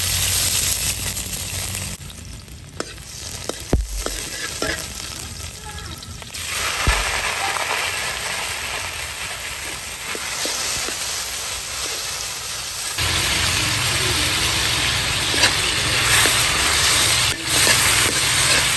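Sliced shallots sizzling in hot oil in a steel wok. The frying grows louder again about six seconds in, as meat and shrimp are stir-fried, with a metal spatula scraping and knocking against the pan.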